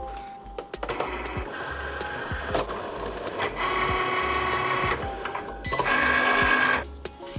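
Cricut Explore cutting machine cutting out stickers, its motors whirring in shifting tones as the blade carriage and rollers move. It starts about a second in, runs louder near the end, then stops suddenly.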